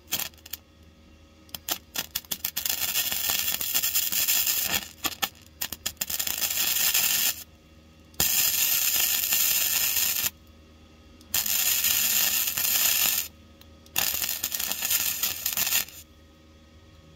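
MIG welder crackling as a repair panel is welded into a car's steel floor pan, starting with a few short stuttering tacks and then going in runs of about one to two seconds with brief pauses between them.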